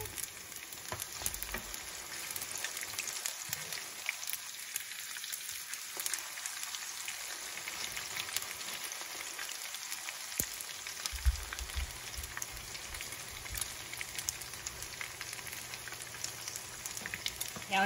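Pasta-and-vegetable fritters frying in shallow hot oil in a pan: a steady sizzling hiss full of small crackling pops.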